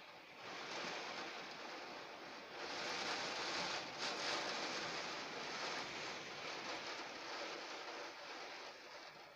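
Rain falling as a steady hiss that swells about a third of the way in and eases off near the end.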